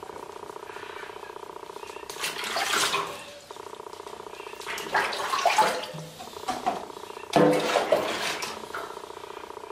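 Wet ginger domestic cat yowling and growling in protest at being bathed, in three drawn-out outbursts about a second long each.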